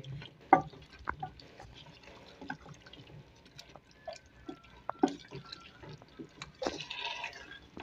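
Wooden spatula stirring chunks of bottle gourd, turnip and beef through a thick, wet curry in a metal pot. It makes faint, irregular wet squelches with light scrapes and taps.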